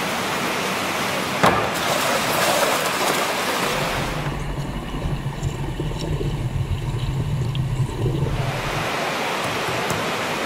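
Steady hiss of water running and splashing in fish-hatchery tanks, with a single knock about a second and a half in. From about four to eight seconds the sound turns into a muffled low rumble, as heard underwater.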